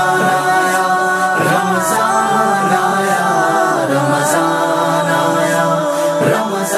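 Unaccompanied vocal music of an Urdu Ramadan nasheed: layered voices holding long, steady notes that bend slowly between pitches, with no instruments.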